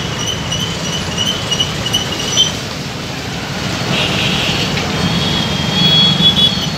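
Street traffic with motorcycle engines running, a steady low rumble. A high, thin tone comes and goes over it, wavering in the first couple of seconds and held steadier near the end.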